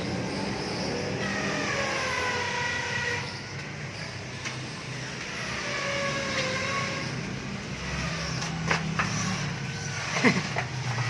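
Motor vehicle engine sound, pitch sliding downward twice as if vehicles pass, over a steady low hum. A few sharp knocks come near the end.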